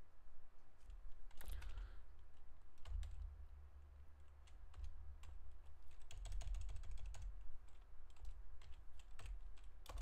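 Typing on a computer keyboard: irregular key clicks, with a quicker run of keystrokes about six seconds in.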